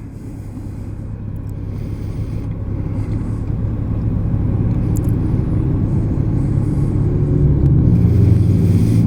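2003 Honda Gold Wing's flat-six engine running as the bike rides along, getting steadily louder through the stretch.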